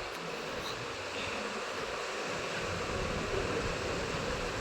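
Steady background noise, an even hiss with a low hum beneath it and no distinct events, gradually getting slightly louder.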